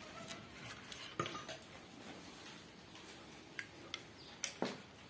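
Faint handling noise of a wire being worked into a PVC pipe: a few light clicks and taps of wire against plastic, one sharp click about a second in and a short cluster of taps near the end.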